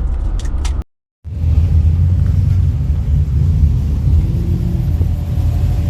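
Low, steady car engine rumble, cut off by a brief silence about a second in, then continuing.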